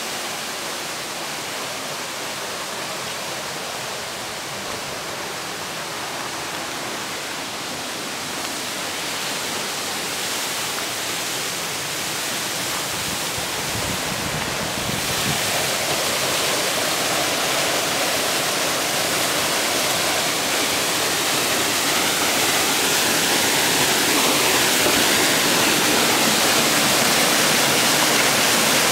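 Small waterfall splashing down over boulders into a rock pool: a steady rush of falling water that grows louder through the second half.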